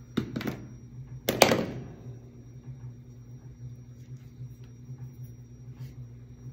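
Two brief knocks of handling in the first two seconds as hands work a fabric-wrapped candy cane over a plastic craft mat, the second louder with a short ring-out, then a steady low hum with a few faint ticks.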